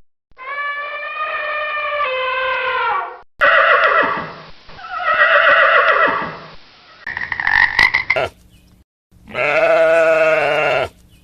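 A run of different farm animal calls one after another. It opens with a long cow moo, followed by several other livestock calls, the last one about ten seconds in.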